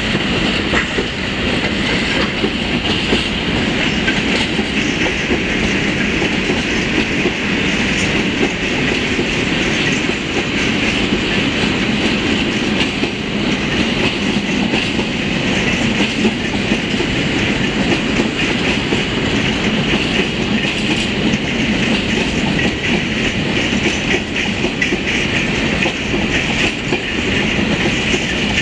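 Long freight train of open-top wagons rolling past at steady speed, with wheels clacking over the rail joints and a continuous rumble.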